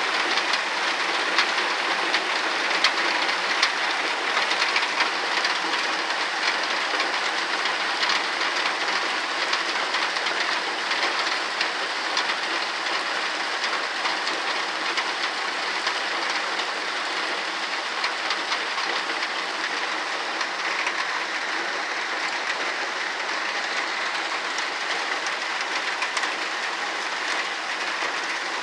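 Heavy rain falling steadily, a dense hiss of drops on surfaces, easing slightly toward the end.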